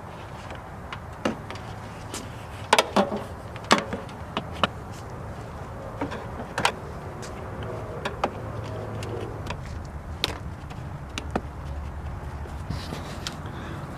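Scattered sharp clicks and knocks of hands handling a camera cable, transmitter and plastic vehicle trim, loudest in a cluster about three seconds in, over a steady low rumble.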